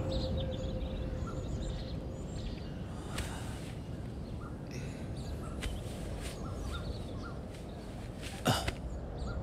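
Outdoor background with birds calling here and there, including crows cawing, over a steady low noise. A held music tone fades out in the first two seconds, and a short, loud sound with falling pitch comes about eight and a half seconds in.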